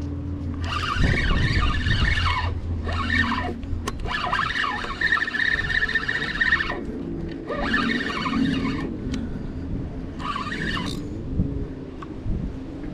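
Penn spinning reel's drag screaming in five bursts of about one to three seconds, the longest nearly three seconds with a steady high pitch: a large hooked fish running and pulling line off the spool.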